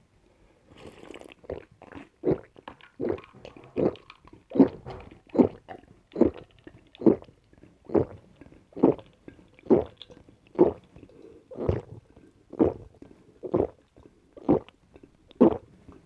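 A person gulping down a drink in steady swallows, a little more than one a second, with a short hiss just before the gulps begin.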